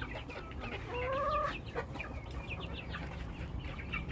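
A flock of chickens clucking, with one louder, longer call about a second in.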